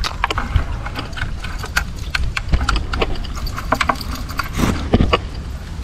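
A collapsible mesh fish trap being handled: irregular rustling of the net and sharp clicks and knocks from its frame against dry grass, over a low rumble.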